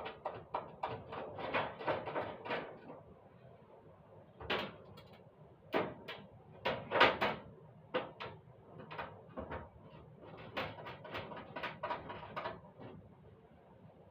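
Clattering and knocking of household objects being handled in a kitchen: a string of short knocks and rattles, thickest in the first few seconds and again later, with the loudest knock about seven seconds in.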